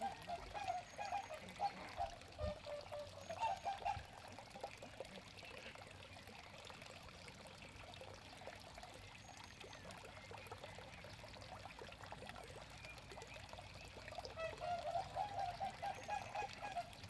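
Water trickling into a small pond, with a louder stretch of quick gurgling in the first few seconds and again near the end.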